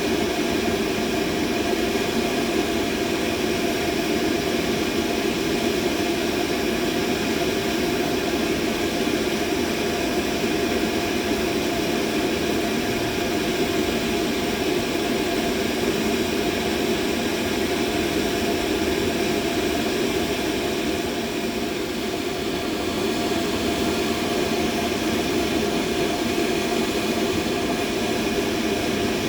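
Continuous machine noise used as a tinnitus masking sound: a steady rushing hum with its weight low in the middle range and faint steady tones above it. It turns briefly a little softer about 22 seconds in.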